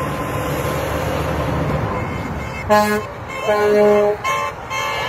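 Highway traffic passing, a steady rush of tyres and engines, then three short horn honks in quick succession a little past halfway, the second and third held a bit longer.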